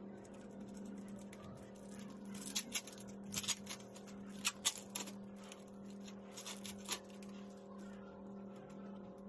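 Parcel wrapping on a mailing tube crinkling and tearing as it is pulled off by hand, a run of sharp crackles in the middle, over a steady low hum.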